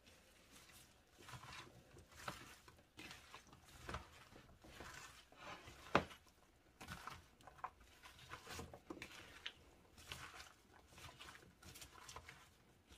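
Gloved hands tossing chopped raw vegetables (broccoli, green beans, zucchini, onion) through marinade in a large bowl: faint, irregular rustling and soft clicks of the pieces knocking together, with one sharper click about six seconds in.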